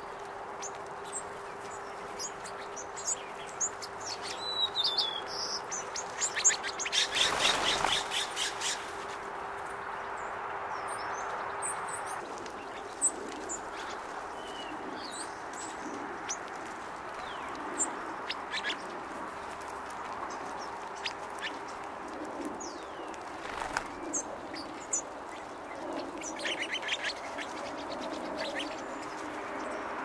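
Small songbirds chirping in short, scattered calls, with a rapid run of sharp ticks about seven seconds in and again near the end. A faint steady hum sits in the background.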